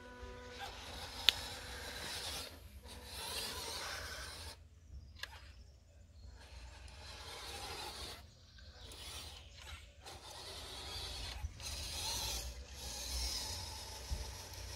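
Small RC crawler (MN D90, 1/12 scale) driving through soft sand: its electric motor and gearbox whir in uneven spurts with several brief stops, tyres scraping through the sand. A single sharp click about a second in.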